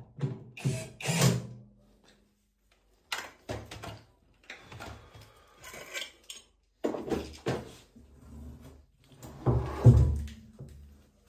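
Irregular clanks, knocks and rattles of metal parts being handled and set down, coming in several short clusters, the loudest near the end, with a brief ring after the first.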